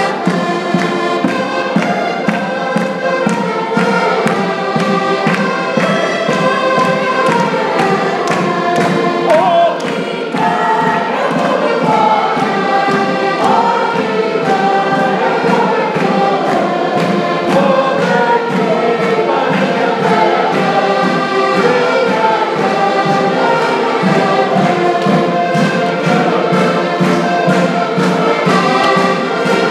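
Diatonic button accordions (concertinas) playing a lively folk tune, with a group of people singing along and clapping in time.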